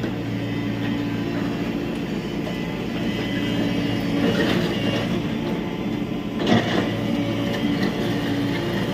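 Tata Hitachi EX70 Super Plus excavator's diesel engine running steadily, with two short knocks of demolition debris, one about four seconds in and a louder one about six and a half seconds in.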